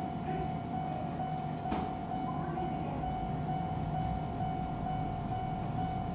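Kobe Electric Railway train at the station, a steady hum carrying one high steady tone, with a single click about two seconds in.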